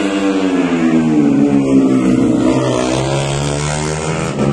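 Yamaha Jupiter MX motorcycle, a four-stroke single, running hard at high revs while passing. Its pitch falls steadily over the first two seconds or so, the engine loudest about two seconds in, then holds steadier.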